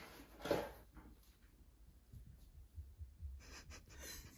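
Cardboard box and packaging rustling and scraping as a light bulb is unpacked by hand, with a short scrape about half a second in, then faint handling noises and small clicks.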